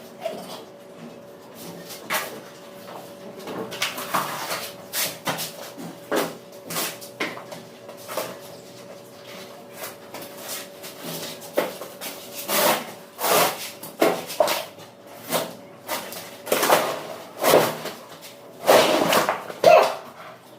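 Repeated irregular knocks and short scraping strokes from hand work during an apartment renovation, over a steady low hum. The strokes grow louder and come closer together in the second half.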